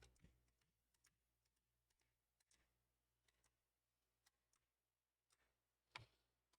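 Near silence broken by a few faint, scattered clicks, one slightly louder about six seconds in: keys of a Macintosh Plus M0110A keyboard being pressed while testing why the Z key does not register.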